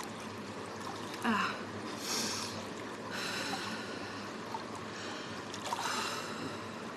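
A freediver's heavy recovery breathing after surfacing from a breath-hold of more than six minutes: a short voiced gasp about a second in, then several long, hissing breaths in and out as she takes back oxygen.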